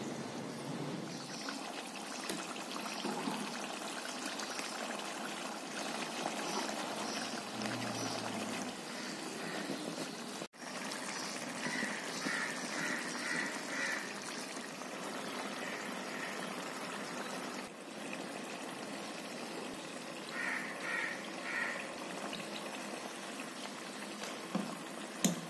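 Meat stew bubbling as it simmers in a wok, a steady hiss of boiling liquid, with short high chirps twice.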